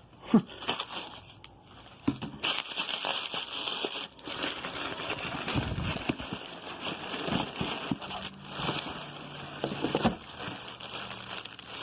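Packing material rustling and crinkling as hands dig through a shipping box, with scattered knocks and clicks of things being handled.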